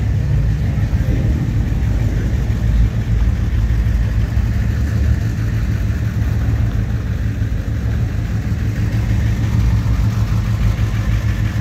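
Car engines running at idle, a steady low rumble.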